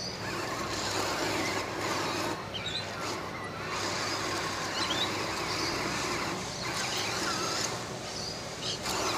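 Dagu Rover 5 robot's electric gear motors running as it drives over loose gravel, the noise dipping briefly a few times as it stops and starts.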